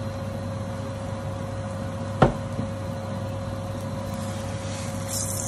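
Steady low hum with one sharp knock about two seconds in; near the end a hiss of oil sizzling on the hot tawa starts up as the oil is spread over the aloo paratha.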